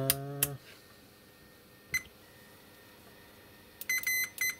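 Digital multimeter beeping: one short beep about two seconds in, then a quick broken run of short beeps near the end as the meter's test probes are touched together on the continuity setting.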